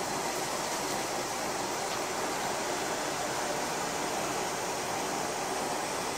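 SKR500 diesel railcar running along the line, heard from on board as a steady, even rushing noise with no distinct beats.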